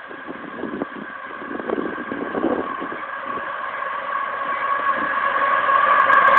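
Diesel locomotives of an approaching potash freight train: a steady, tone-laden engine sound growing steadily louder, with some wind on the microphone early on.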